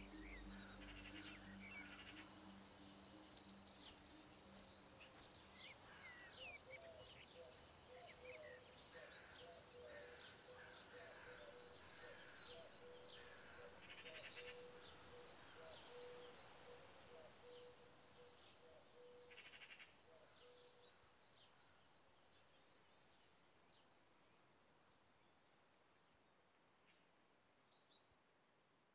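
Faint garden birdsong ambience, scattered chirps and quick trills from several birds over a soft background hiss, slowly fading out toward near silence. The last held notes of music die away in the first few seconds.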